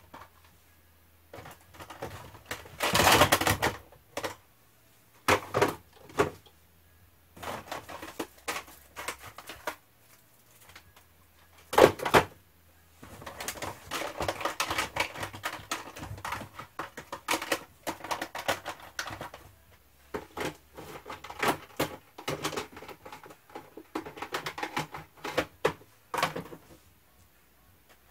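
Plastic cassette tape cases clicking and clacking as they are handled and stacked out of a cardboard box, in quick runs of small clicks. A longer rustle comes about three seconds in, and a single loud knock near the middle.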